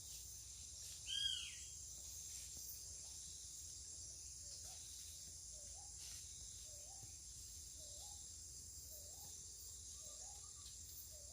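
Forest ambience: a steady high chorus of insects, one loud short animal call falling in pitch about a second in, then a short low call repeated about once a second.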